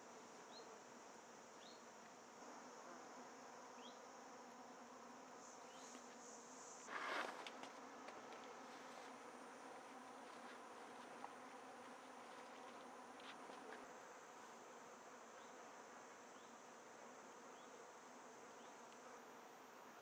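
Faint buzzing of flying insects, a low steady hum, over a steady high-pitched insect hiss; a brief louder noise about seven seconds in.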